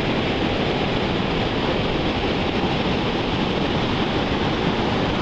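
Steady rush of flowing stream water close to the microphone, held at the water's surface.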